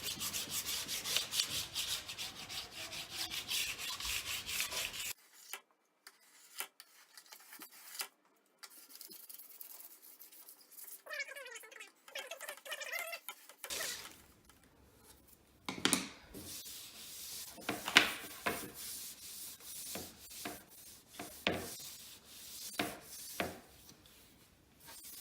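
A wax scraper being pushed hard over a snowboard base, stripping old wax in quick, rapid strokes that stop about five seconds in. Scattered knocks and short scrapes follow later.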